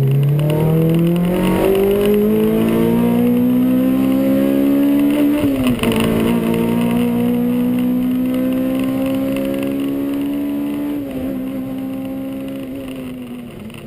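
Race car engine accelerating hard, its pitch climbing steadily, with a quick gear change about five and a half seconds in and another around eleven seconds. It fades away near the end.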